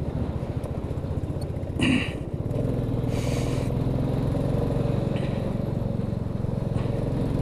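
Motorcycle engine running steadily while riding over a rough gravel road, with road noise underneath. About two and a half seconds in, the engine note settles and gets slightly louder. There is a short sharp sound about two seconds in and a brief hiss just after three seconds.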